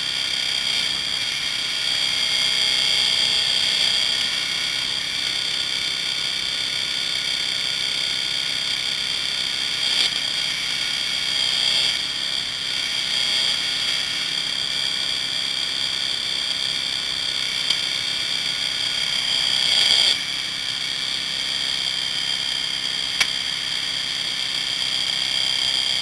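Hydraulic rescue tool (jaws of life) and its power unit running steadily with a continuous high-pitched whine as firefighters work the tool on an SUV's door.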